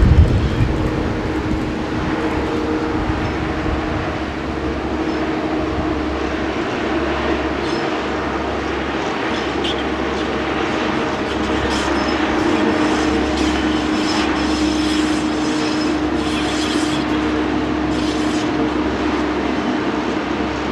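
Swiss narrow-gauge diesel rack locomotive (MGB HGm 4/4) running past, its diesel engine giving a steady hum. It comes with intermittent clicking and rattling from the wheels and running gear in the second half.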